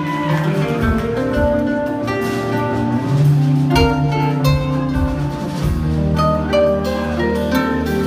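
Live instrumental progressive metal band playing: melodic electric guitar lines with sustained notes over bass and drums, with occasional low drum hits.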